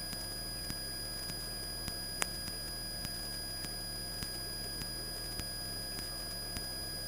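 Faint steady electrical hiss with several thin high-pitched tones on the radio/intercom audio feed, soft ticks repeating about every half second and one sharp click about two seconds in.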